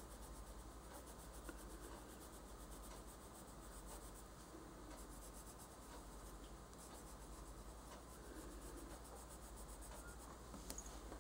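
Faint scratching of a Prismacolor colored pencil on paper, rubbed back and forth in many quick short strokes as colour is shaded in.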